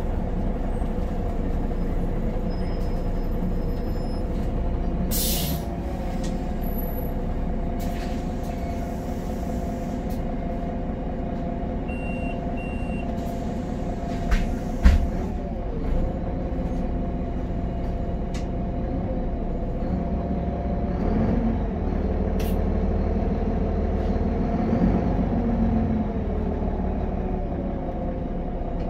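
Heard from inside the cabin, a 2007 Solaris Urbino 18 III articulated bus drives on its DAF PR228 diesel engine, its note shifting a little with speed. A short burst of air hiss comes about five seconds in, two brief beeps around twelve seconds, and a sharp knock about fifteen seconds in.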